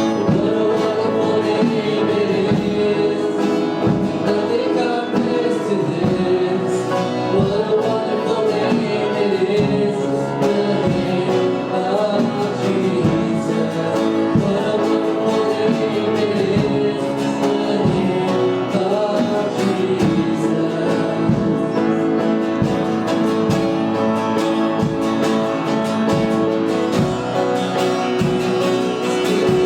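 A worship song: singing over guitar-led band accompaniment with a steady beat.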